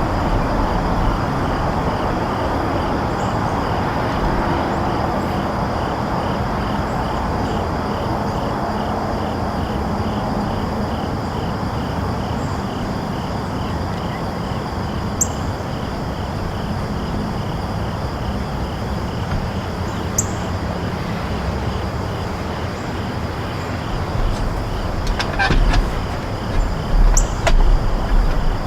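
Steady outdoor background noise like distant road traffic, with a faint high-pitched pulsing repeating about twice a second above it. Low bumps like wind on the microphone come in during the last few seconds.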